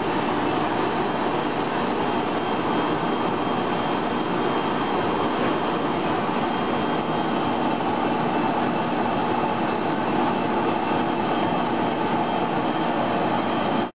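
GMS micromailer mail-production machine running at speed, a steady, even mechanical rush as sheets feed through its scoring and perforation unit.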